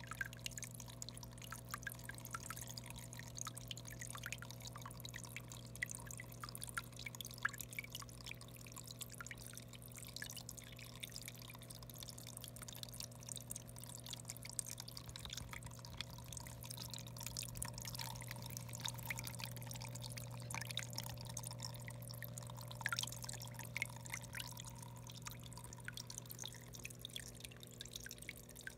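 Small vivarium waterfall trickling and splashing into a shallow pool, a steady patter of many tiny irregular drips and splashes, over a constant low hum.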